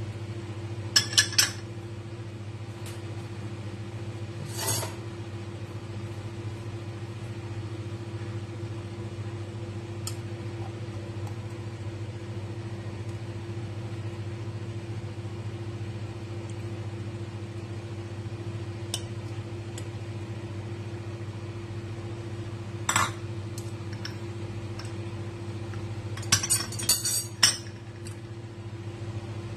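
Metal tongs and a small dish clinking against a stainless steel cooking pot and bowl as shallots and pieces of milkfish are put into the pot. There is a quick cluster of clinks about a second in, a single one near five seconds, another near 23 seconds and a cluster near the end, all over a steady low hum.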